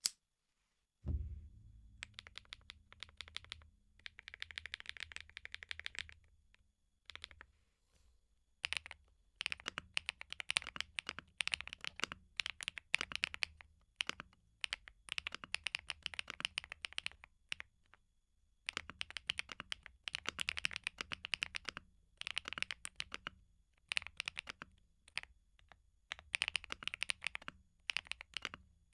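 Typing on a KeebMonkey x PMO P75 transparent 75% mechanical keyboard with PC keycaps: fast runs of keystrokes with short pauses between them, starting about a second in.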